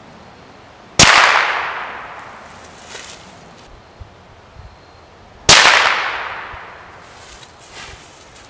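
Two shots from a .22 LR rifle with a homemade rebar barrel, about a second in and again some four and a half seconds later, each followed by an echo that fades over about a second.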